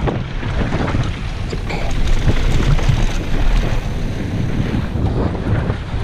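Wind buffeting the microphone of a rider-mounted camera on a mountain bike descending a dirt trail at speed, mixed with the rumble and scattered clicks and rattles of the bike rolling over the ground.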